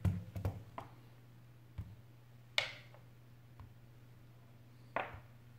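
Small clicks and taps of fingers and a handled iPhone 8 Plus on a desk mat: a quick cluster of little knocks in the first second, then single sharper taps, the strongest about halfway through and another near the end, over a low steady hum.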